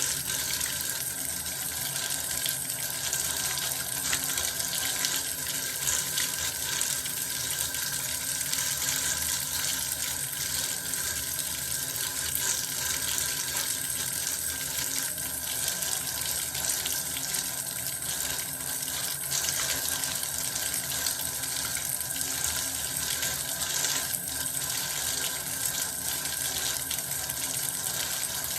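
Bath water running steadily from a tap, an even rushing noise that does not change.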